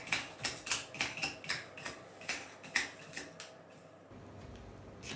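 Homemade prize wheel ticking as it spins and coasts down: the clicks come farther and farther apart and stop about three and a half seconds in.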